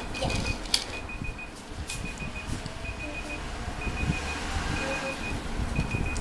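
A high electronic beep, each one a quick trill, repeating about once a second over a low steady hum, with a single sharp click about a second in.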